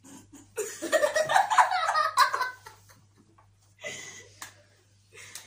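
Girls laughing, in one loud burst lasting about two seconds that starts about half a second in, then dying away to a few faint sounds.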